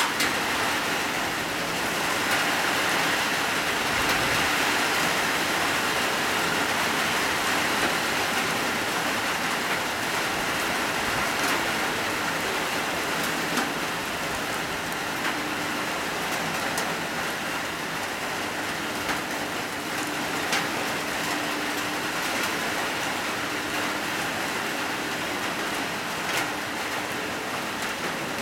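Heavy rain falling steadily on wet pavement and puddles: a dense, even hiss with a few sharper drop taps scattered through it.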